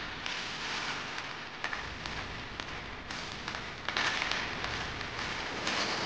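Steady hissing noise with scattered small clicks and crackles, swelling brighter about four seconds in.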